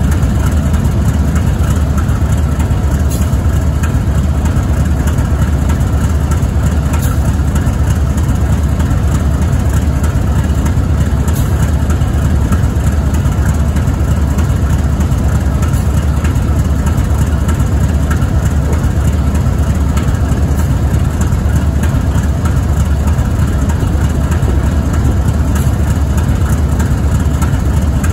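GE ES44AC locomotive's GEVO-12 V-12 diesel engine idling steadily.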